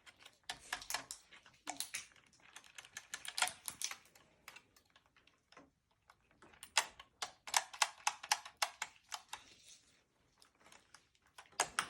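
Rotary telephone dial being worked by hand: runs of quick, uneven mechanical clicks in two spells, with a pause of about two seconds around the middle.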